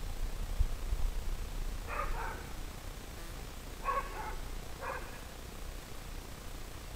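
A dog barking: three short barks, about two, four and five seconds in, over a low rumble.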